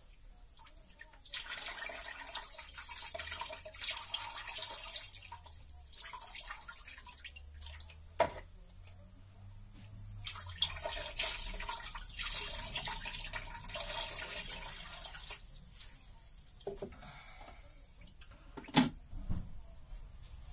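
Water splashing into a basin during hand-washing, in two spells of a few seconds each. There are two sharp knocks, one in the middle and one near the end.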